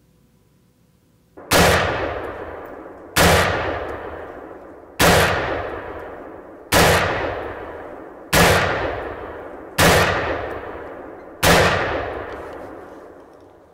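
Seven loud single gunshots at an even pace, one every second and a half or so. Each crack is followed by a long echoing tail that fades before the next shot.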